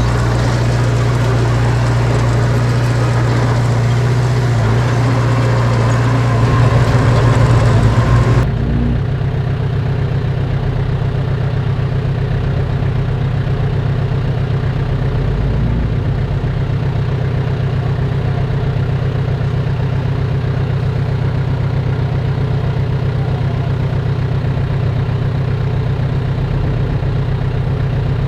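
Heavy diesel engine of earthmoving machinery running, loud and rough with a brief swell in level. About eight seconds in it changes abruptly to a steadier, lower idle-like hum.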